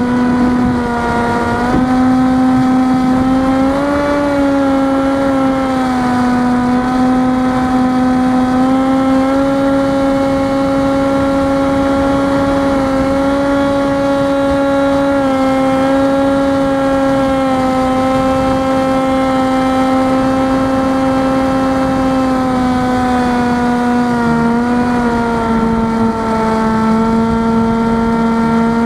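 Electric motor and 6-inch propeller of a Rabbit FPV flying wing running steadily in flight with a droning tone. The pitch sags slightly near the end, then climbs as the throttle is opened.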